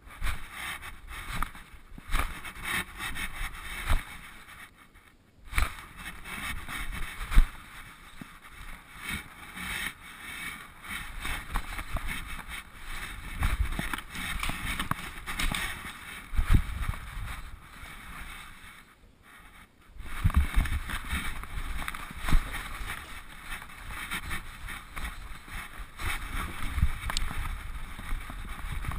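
Handling noise from a GoPro strapped to a dog's back: steady rubbing and rustling of the mount against fur and harness as the dog moves, with scattered dull knocks. It drops out briefly about five seconds in and again near nineteen seconds.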